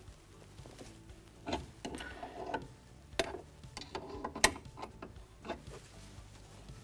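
A spanner undoing the nut between a boiler's gas valve and fan: scattered metallic clicks and knocks, the sharpest about four and a half seconds in.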